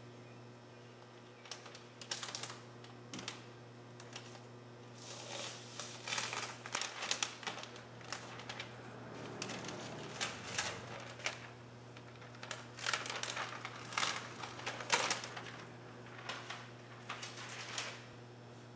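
Masking paper and masking tape being handled: paper rustling and crinkling with tape being pressed down and peeled, in irregular clusters of short crackling bursts. A steady low hum runs underneath.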